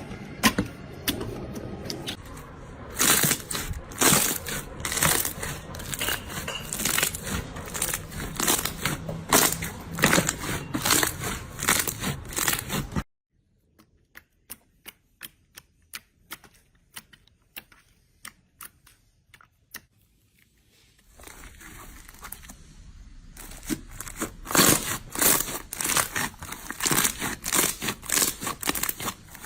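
Slime being squeezed and kneaded by hand, a dense run of wet clicks, pops and crackles. About halfway through it cuts to a much quieter patch of separate small clicks, then the dense crackling builds up again.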